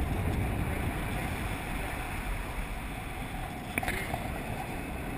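Wind rushing over the camera microphone during a skydive: a steady, rumbling noise of air, with a couple of faint clicks about four seconds in.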